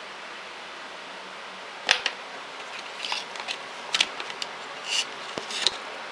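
Cardboard phone box and its insert being handled by hand: a string of sharp clicks, taps and short scrapes starting about two seconds in, over a steady hiss.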